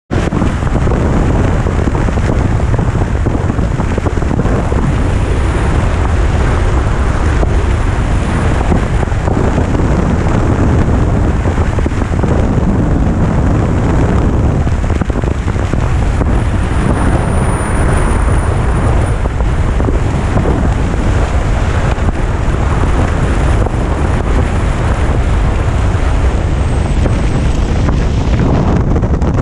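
Wind buffeting the microphone at road speed on a Yamaha FJR touring motorcycle, with engine and tyre noise underneath, steady throughout.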